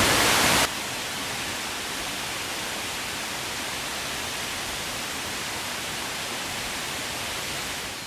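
Waterfall rushing steadily, an even hiss of falling water with no pitch or rhythm. It drops suddenly in level under a second in and fades out near the end.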